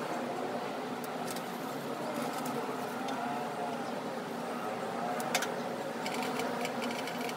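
Portable gas stove burner running steadily under a carbon steel pan, with hot oil crackling as a paper towel wipes it around the pan. The oil is at smoking heat for seasoning. The crackling gets thicker near the end.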